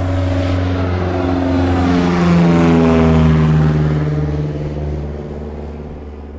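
A propeller airplane flying past: its engine drone swells to its loudest about two to three seconds in, then drops in pitch as it passes and fades away.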